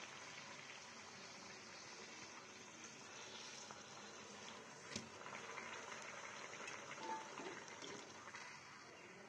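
Spinach kachori deep-frying in hot oil in a kadhai: a faint, steady sizzle and bubbling of the oil, with one sharp click about five seconds in.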